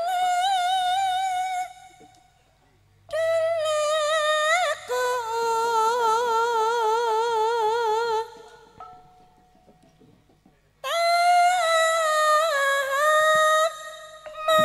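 A female Javanese sinden singing into a microphone with no accompaniment. She holds long, high notes with a wavering vibrato in three phrases, with short pauses between them.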